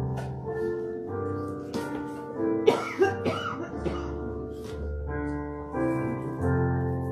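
Slow instrumental keyboard music playing held chords that change about once a second. A cough breaks in about three seconds in.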